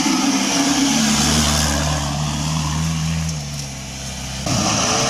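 Off-road vehicle's engine running under load, its pitch rising a little and then fading away; about four and a half seconds in the sound switches abruptly to a louder, noisier engine.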